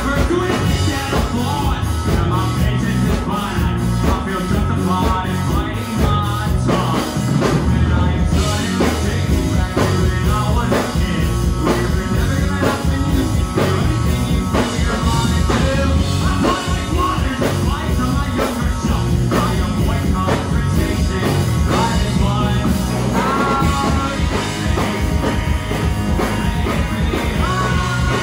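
Live rock band playing loud and without a break: electric guitars and a drum kit.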